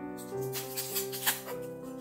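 Soft background music with sustained keyboard notes. About half a second in, a second of rustling as foam wrapping is pulled off a dish, with one sharp crinkle near the middle.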